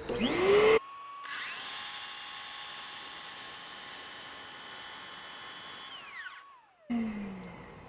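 DeWalt miter saw motor spinning up with a rising whine, then running steadily at full speed as the blade cuts through flexible crown moulding, and winding down with a falling pitch near the end.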